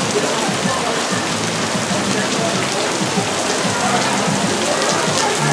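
Steady hiss of heavy rain from a restaurant's simulated rainstorm effect, with faint diners' voices underneath.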